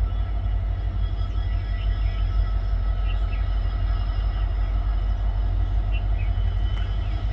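Twin EMD WDG4D diesel-electric locomotives, each with a 16-cylinder two-stroke diesel engine, running at low power as they roll slowly by. They give a steady low engine rumble with a faint even hum of higher tones over it.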